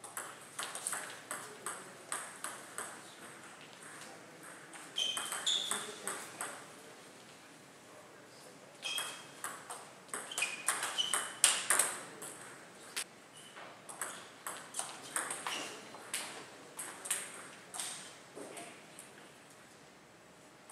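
Table tennis rallies: the ball clicks back and forth between bats and table in quick runs of strokes, three rallies with short pauses between them, the sharpest hit a little past the middle. A few short high squeaks, from shoes on the court floor, come in during the rallies.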